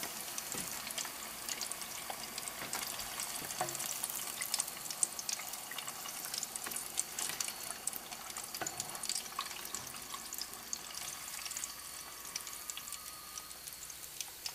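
Breaded chicken tenders frying in hot oil: a steady crackling sizzle with many small pops, easing off a little near the end.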